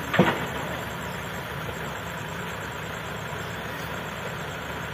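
Heavy diesel engine idling steadily, with one brief loud knock about a quarter of a second in.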